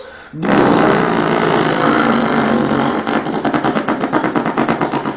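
Mouth imitation of a Freightliner truck's diesel engine: a rough, loud engine-like drone starts about half a second in. A few seconds later it turns into a pulsing rumble of about six beats a second.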